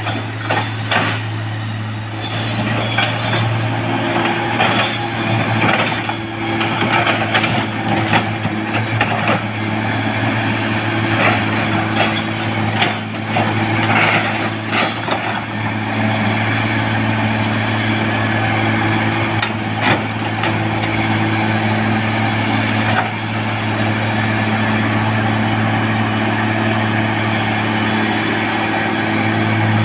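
Heavy diesel earthmoving machinery running with a steady low drone, with frequent metallic clanks and knocks through the first half that die away about halfway through.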